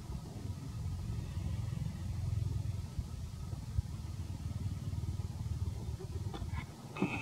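A low rumble that swells around the middle and dips just before the end, with a few light clicks near the end.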